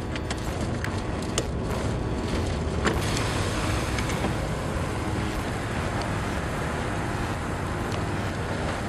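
Steady low rumble and rushing noise of a vehicle, with a few sharp clicks in the first three seconds.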